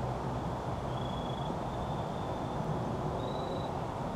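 Outdoor ambience: a steady low rush, with a thin high-pitched trill that sounds on and off several times.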